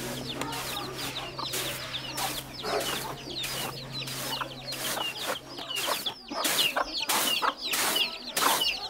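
Hen clucking and chicks peeping in quick, high, falling chirps, over repeated short swishes of rice tossed in a woven bamboo winnowing tray. A low steady hum stops about six seconds in.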